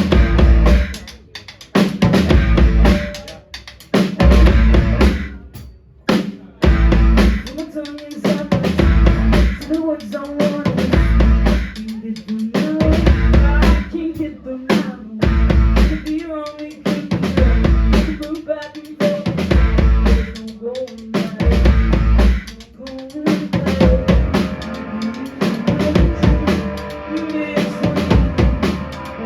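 Live rock band playing loud, driven by a drum kit with heavy bass drum hits about every one to two seconds and snare and rimshot strikes.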